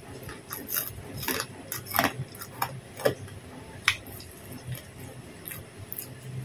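Close-up eating sounds: scattered sharp crunches and clicks from chewing crackers and rice, with fingers picking food off the tray, about one or two a second.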